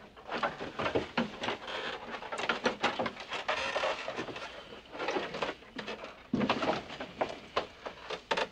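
A man clambering onto a wooden conference table: irregular knocks and scuffs of shoes and knees on the tabletop, with rustling cloth.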